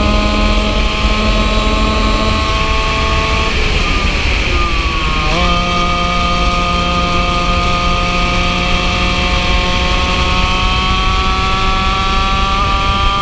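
Yamaha KT100 two-stroke kart engine running at high revs. A few seconds in, its pitch drops as the driver lifts for a corner. It then pulls again, its pitch climbing steadily as it gathers speed.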